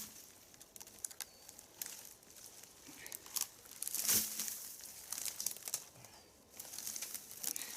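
Dry fallen leaves and twigs rustling and crackling, with many small snaps, and one dull thump about four seconds in.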